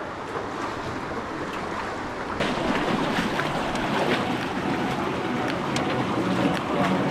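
Shallow, fast river water rushing and splashing over rocks. About two seconds in it becomes louder and closer, with many small splashes as the muddy current swirls around a person's legs standing in it.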